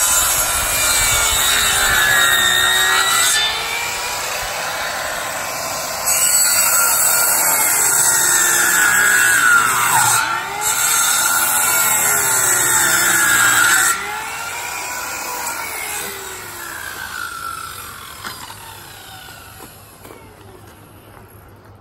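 Circular saw cutting through wooden fence rails in two loud cuts, one over the first few seconds and a longer one from about 6 to 14 seconds in, its motor pitch dipping and rising as the blade takes the load. Between and after the cuts it runs quieter, and it fades away over the last few seconds.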